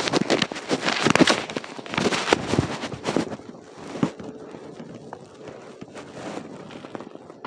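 Crunching and rustling of footsteps through dry leaves and brush, dense and loud for the first three seconds or so, then sparser and quieter.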